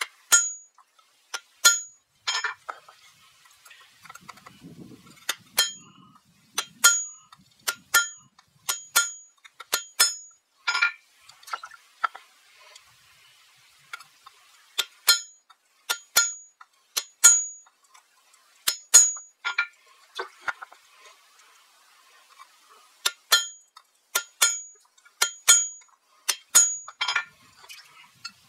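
Hammer blows on an anvil while forging steel for a broad axe, each strike ringing out metallically. The blows come about one to two a second, often in quick pairs, with brief pauses between runs.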